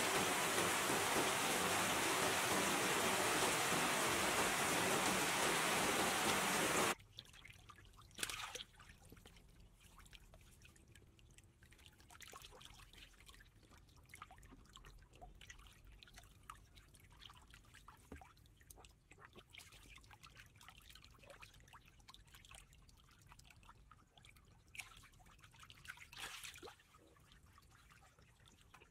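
Steady hiss of heavy rain that cuts off suddenly about seven seconds in. Then faint water sounds follow: drips, trickles and small splashes, with two brief louder splashes about eight seconds in and near the end.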